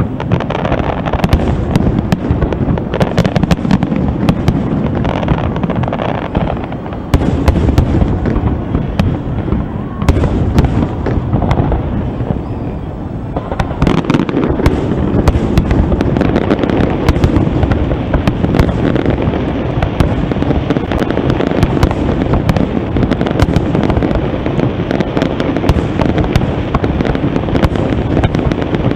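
Fireworks display: aerial shells bursting one after another in a dense, continuous run of bangs and sharp cracks. The bursts jump louder about seven seconds in and again at ten seconds.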